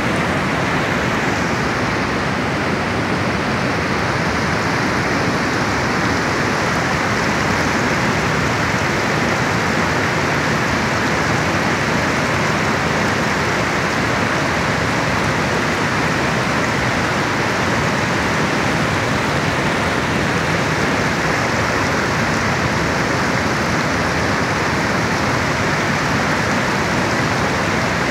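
Neelum River rapids rushing over boulders: a steady, loud wash of white water.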